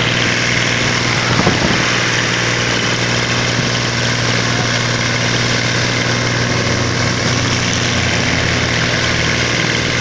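Tractor engine running steadily with a constant low hum as the tractor drives along, with a brief thump about a second and a half in.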